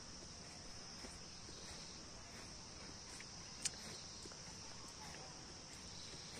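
Faint, steady high-pitched insect trilling outdoors, with one short sharp click a little past halfway.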